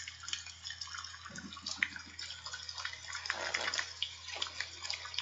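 Water running steadily with a crackly splashing hiss, and the paper pages of a picture book being handled and flipped a few seconds in.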